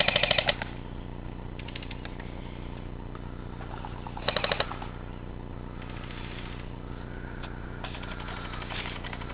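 Airsoft guns firing short full-auto bursts of rapid clicking shots: a loud burst right at the start and another about four seconds in, with fainter, more distant bursts in between and near the end.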